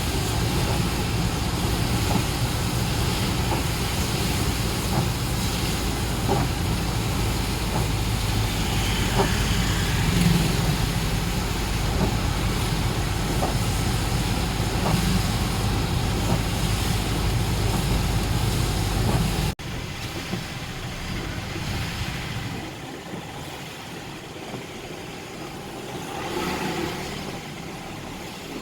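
A motor vehicle engine idling with a steady low hum. About two-thirds through, the sound cuts abruptly to quieter, even street noise.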